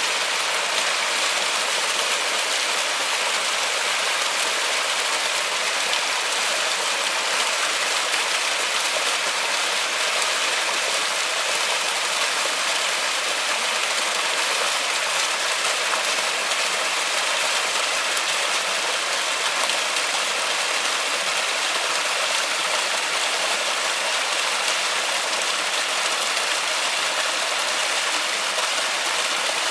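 Steady rain falling in a forest: a dense, even hiss of drops with no let-up or change.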